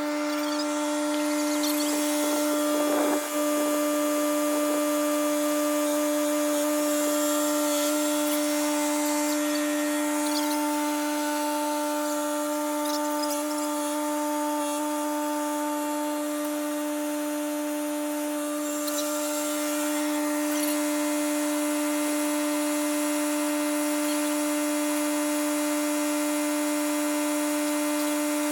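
A motor running at a steady speed: a constant hum with a fixed pitch, with a brief patch of clicks about three seconds in.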